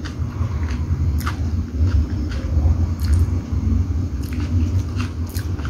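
A person chewing food close to the microphone, with scattered mouth clicks and smacks over a steady low rumble.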